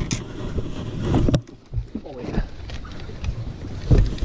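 Wind buffeting the microphone, with rustling and knocks as a landing net is grabbed on a bass boat deck, and a heavy low thump about four seconds in.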